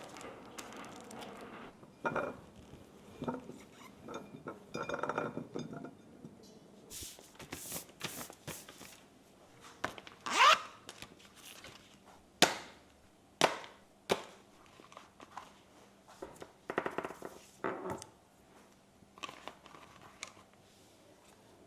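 Household handling sounds: scattered clicks, knocks and scrapes of objects being picked up and set down, with a short rising scrape about halfway through as the loudest sound.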